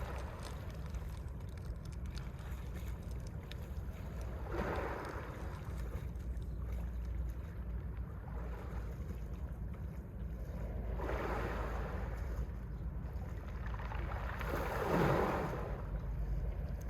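Mediterranean sea waves washing onto the shore, three surges swelling and falling away, the last the loudest, over a steady low rumble of the sea.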